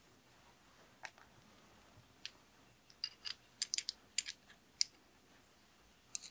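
Small metal brake parts clicking and clinking against each other as a brake pad post, washers and nut are fitted to a cantilever brake arm by hand. The clicks are scattered and light, and come thickest between about three and five seconds in.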